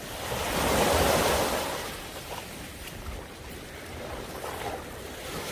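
Small waves washing in over a sandy shore, with a louder swell of surf and splashing about a second in that then eases off.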